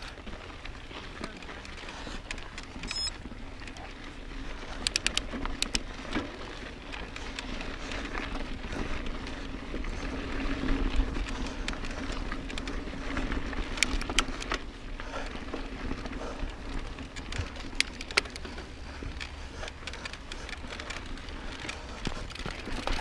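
Mountain bike rolling over rocky, sandy singletrack: tyres crunching on rock and grit, with scattered sharp clicks and rattles from the bike, over a low rumble of wind on the microphone.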